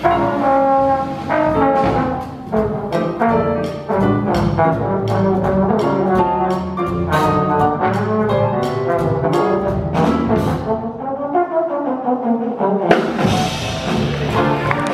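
Jazz trombone solo over upright bass, piano and drums: a busy run of short notes punctuated by drum and cymbal hits, then a falling slide in pitch about ten seconds in before the band's sound fills out again near the end.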